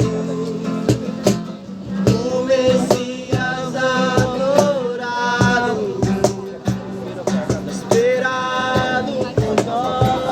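A worship song: a male voice singing held, gliding notes over steady instrumental chords, with frequent percussive strikes.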